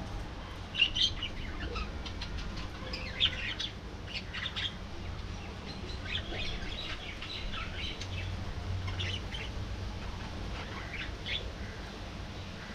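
A flock of budgerigars chirping and chattering in short, scattered bursts of high calls, with a few sharper, louder chirps near the start, over a steady low hum.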